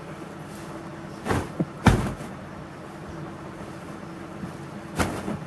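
A long cloth dupatta being unfolded and shaken out, giving sharp swishes and flaps about a second in, just before two seconds in (the loudest), and again near the end.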